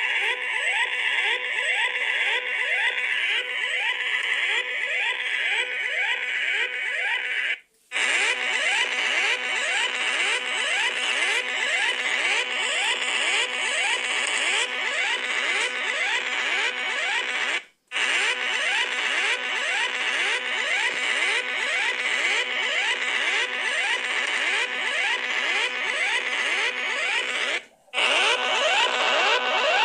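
Mock emergency-alert-system alarm: a harsh electronic tone of fast rising whoops, several a second, over a loud hiss. It runs in stretches of about ten seconds, cut three times by a brief silence.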